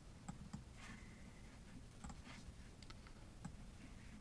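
Near silence in a small room, broken by a few faint, irregular computer mouse clicks.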